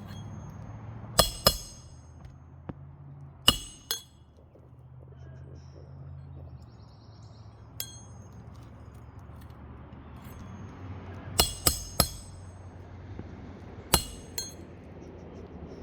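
Roofer's hatchet driving roofing nails through an asphalt shingle: sharp, ringing metal strikes in small groups of two or three, with pauses between the groups.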